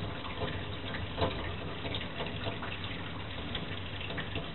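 A thin stream of water from a tap running steadily into a stainless steel sink.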